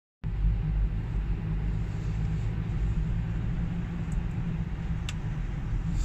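Steady low road rumble of a car driving at speed, heard from inside the cabin: tyre and engine noise with no change in pace. A few faint clicks about four and five seconds in.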